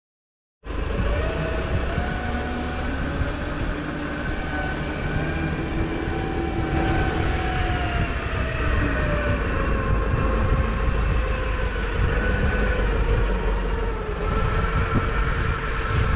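Compact wheel loader's diesel engine running as it drives up with a load on its forks, with a whine that wavers and slowly falls in pitch. It cuts in abruptly about half a second in.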